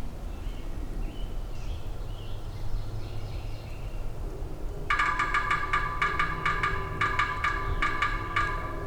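Woodpecker drumming on the hollow aluminum ladder of a ladder stand. Starting about five seconds in, it drums in several fast rolls of strikes, each ringing with a metallic tone.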